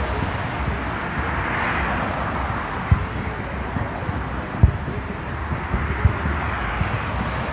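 Steady outdoor background noise with wind rumbling on the microphone, and a few dull low thumps about three, four and a half and six seconds in.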